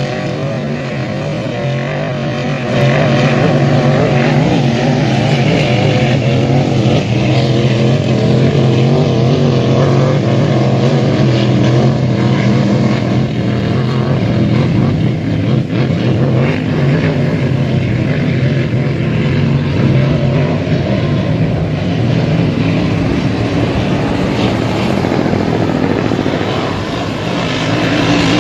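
Racing hydroplane engine running at high speed: a loud, steady drone that gets louder about three seconds in.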